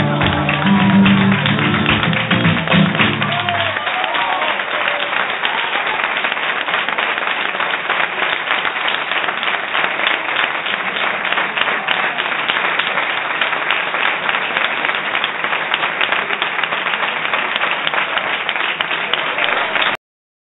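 Flamenco guitar plays the last chords of a bulerías with voices over it, stopping about four seconds in; an audience then applauds steadily until the sound cuts off suddenly near the end.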